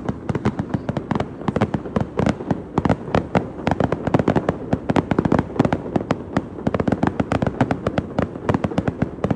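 Fireworks going off in a dense, unbroken barrage of sharp bangs and crackles, many a second.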